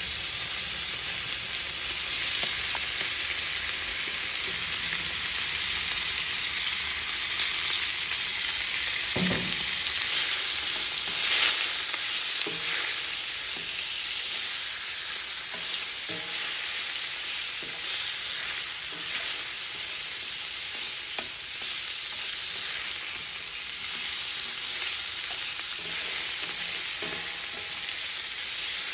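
Strips of pork seared in a very hot pan with olive oil: a steady, loud sizzle, with now and then the scrape and knock of a wooden spatula as the meat is stirred.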